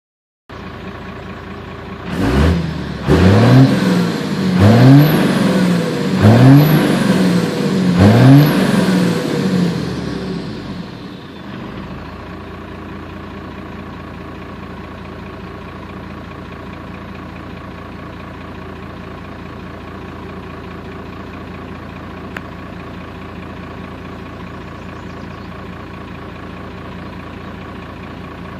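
12-valve Cummins 5.9 L inline-six turbo diesel idling, then revved about five times in quick succession, the turbo whistling up and down with each rev. It then settles back to a steady idle.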